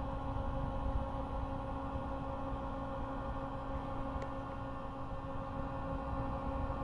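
Steady electrical hum of a running full-height 5¼-inch 5 MB external hard drive unit for a TRS-80, with one faint tick about four seconds in and no steady seek chatter: the drive is powered but its format has stalled.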